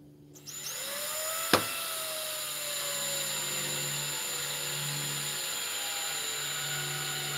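Cordless drill-driver running steadily with a #2 bit, driving a screw into a TV's plastic back panel. There is a sharp click about a second and a half in, and the drill stops abruptly near the end.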